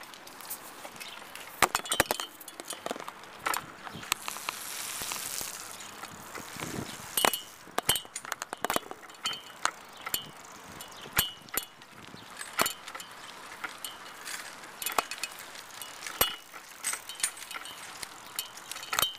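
Mongoose Ravage BMX bike being ridden over bumpy ground: its metal parts rattle and clink in irregular sharp clicks, some with a short metallic ring.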